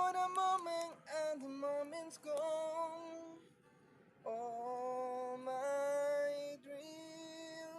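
A woman's voice singing a slow melody in long, held notes. The phrases are broken by a short pause about halfway through.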